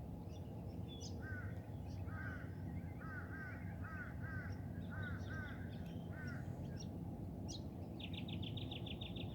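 Birds calling: one bird repeats a short arched call note about a dozen times, roughly two a second, then a rapid high trill near the end, over a steady low background rumble.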